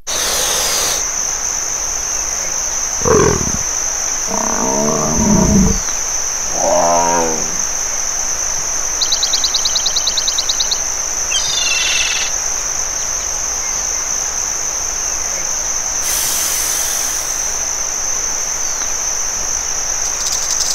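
Dinosaur roar calls: three calls a few seconds in, the middle one the longest, then a fast, even rattling trill near the middle, over a steady high-pitched hiss.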